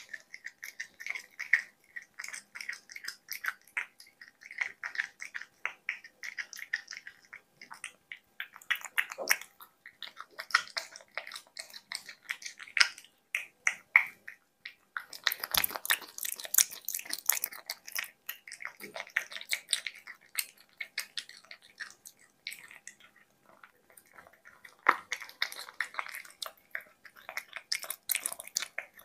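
Cat eating diced duck breast and egg from a bowl: wet licking, lapping and chewing clicks in quick irregular runs with short pauses, loudest about halfway through.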